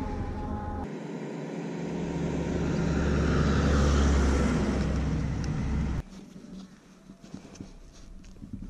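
A tanker truck passing close alongside, its engine and tyre rumble swelling to a loud peak and then easing. The sound cuts off suddenly about six seconds in, leaving a much quieter hiss with light ticks.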